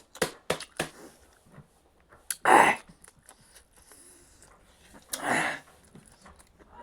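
Close-up eating sounds: a few sharp mouth clicks and smacks, then two loud breathy mouth sounds, one about two and a half seconds in and one about five seconds in.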